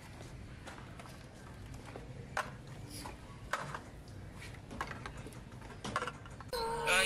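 Steady low background hum with a few short, scattered knocks and clicks. Music with singing comes in near the end.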